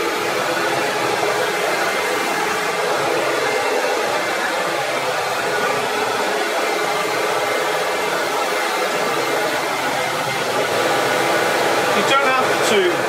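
CamVac CGV336-4 twin-motor dust extractor running steadily with both motors on, a continuous rush of air and motor noise drawn through the 2.5-inch hose. The wood lathe spins a pen blank that is being sanded with hand-held abrasive paper.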